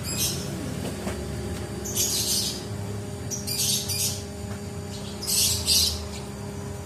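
A bird chirping in four short, rapid bursts about every one and a half to two seconds, over a steady low hum.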